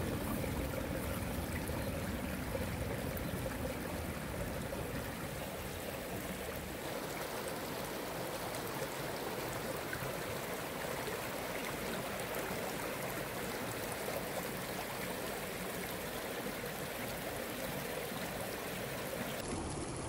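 Shallow mountain stream running over rocks, a steady rush of water. About a third of the way in, the deep low rumble drops away, leaving a lighter, higher rush.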